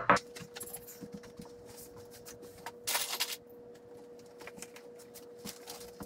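Quiet room with a faint steady hum, scattered light clicks and a short burst of rustling noise about three seconds in.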